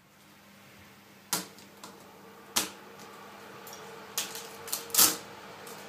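Small screwdriver and tiny screws clicking against the metal keyboard plate of a MacBook Pro Unibody. A handful of sharp, scattered clicks come a second or so apart, and the loudest falls near the end.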